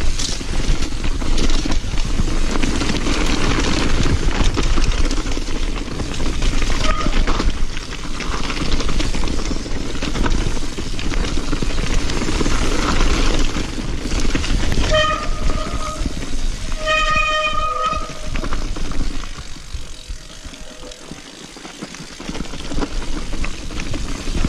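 Transition TR500 downhill mountain bike ridden fast down a dirt forest trail: a steady rush of tyre, wind and rattling-bike noise. Past the middle come two short high squeals a second or two apart, then a brief quieter stretch before the noise builds again.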